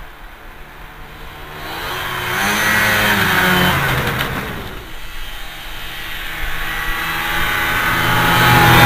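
Snowmobile engine running in deep snow, its pitch rising and falling with the throttle. It swells to a peak about three seconds in, eases off, then grows louder again as a snowmobile approaches near the end.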